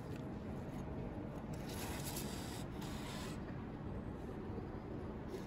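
Banknote being fed into the note slot of a parking pay machine: soft paper rubbing and scraping, with a steady low hum underneath.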